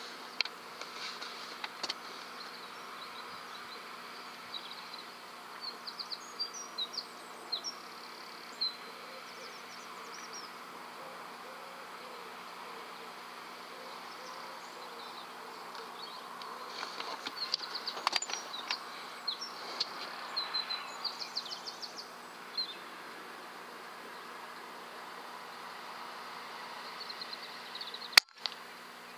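Steady buzzing hiss with small birds chirping at intervals, then near the end a single sharp crack: the shot of a Weihrauch HW100 pre-charged pneumatic air rifle.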